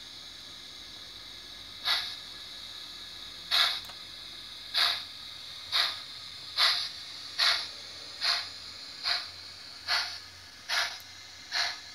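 ESU LokSound V4.0 sound decoder in a Liliput BR 56 model steam locomotive playing steam exhaust chuffs through its stock speaker as the model pulls away. About eleven chuffs start about two seconds in and quicken to a little over one per second.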